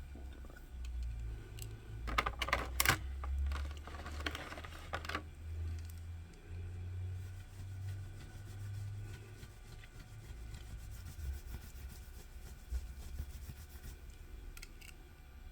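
Handling noise of small diecast toy cars: a cluster of small clicks and rattles about two to five seconds in, then scattered lighter clicks, over a low rumble.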